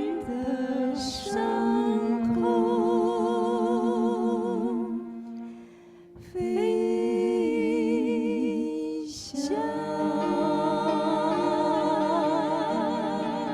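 Slow worship song: a voice holds long notes with vibrato over a sustained accompaniment. Short hisses come about a second in and again near 9 s, and the music thins out briefly around the middle.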